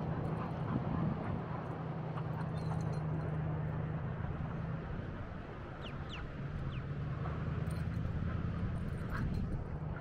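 A steady low engine hum over a noisy haze of beach wind and surf, with a few short, rising high chirps about six seconds in.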